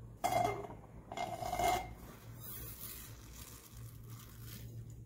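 Two slurps of a drink sucked up through a straw from a glass, a short one and then a longer one about a second in, over a faint steady low hum.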